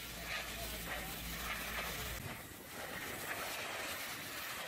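High-pressure washer lance spraying water against a truck's cab and wheel arch: a steady hiss and spatter of the jet on the panels. A low hum underneath stops abruptly about two seconds in.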